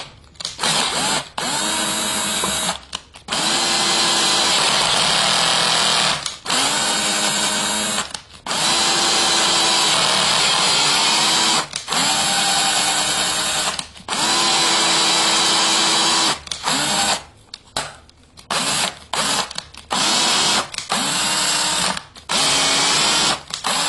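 Electric drill turning a thread tap into holes in a subwoofer plate. The motor runs in repeated stop-start runs of a couple of seconds, each rising in pitch as it spins up, with shorter, quicker runs near the end.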